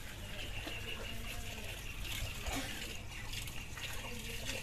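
Water sloshing and trickling in a shallow pond, over a steady high-pitched chirring.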